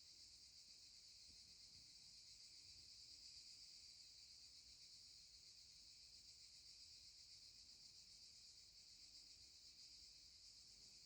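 Near silence with a faint, steady insect chorus, a continuous high-pitched trilling like crickets at night.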